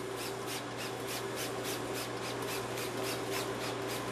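Trigger spray bottle squirting rust remover onto a lawnmower deck's underside in quick repeated pumps, about four short hisses a second, over a steady low hum.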